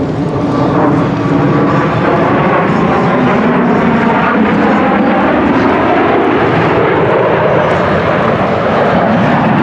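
Aircraft flying over: loud, steady engine noise whose tones slowly bend up and down in pitch.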